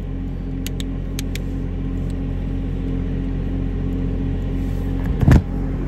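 Miller EnPak compressor, generator and hydraulic pump unit on a service truck, its engine running steadily at idle. A few light clicks come about a second in, and one loud knock comes near the end.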